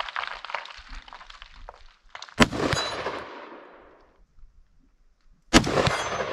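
Two gunshots about three seconds apart at AR500 steel gong targets, each with a high metallic ring from the struck steel and a long echo fading over about a second and a half.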